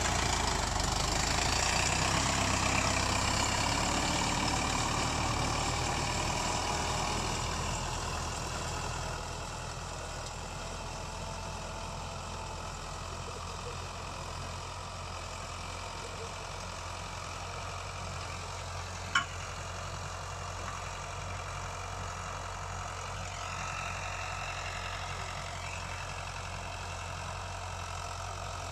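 StrongBull 90 hp tractor's diesel engine running steadily while it pulls a disc harrow. It is loudest at first and drops off after several seconds as the tractor moves away. A single sharp click comes about two-thirds of the way through.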